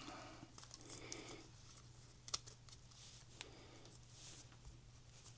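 Near silence with a faint low hum and a few light clicks and rustles of small parts and wiring being handled.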